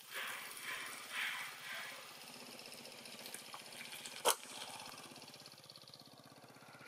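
Macaques calling: a few short, rough calls in the first two seconds, then a single sharp click about four seconds in.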